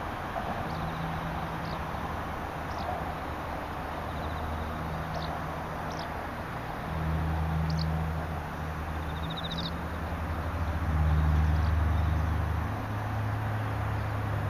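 Wild birds giving several short, high, downward-sweeping calls at scattered intervals over a steady hiss of insects. A low rumble swells twice, most strongly a little past the middle.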